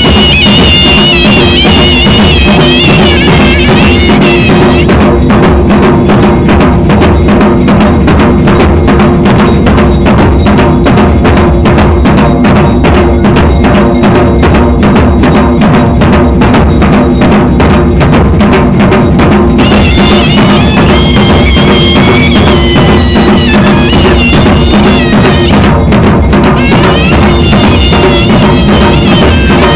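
Himachali folk dhol drums, large brass-shelled barrel drums, beaten with curved sticks in a fast, steady rhythm. A high, wavering melody rises above the drumming in the first few seconds and again about two-thirds of the way through.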